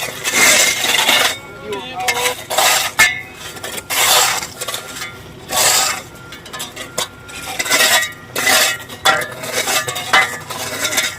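Metal tool scraping and clinking in repeated strokes, about one every second and a half, each stroke loud and short.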